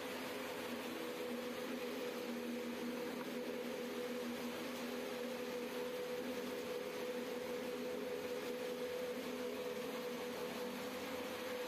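Small electric clay pugmill running steadily while mixing clay, its motor giving a constant hum with a held tone.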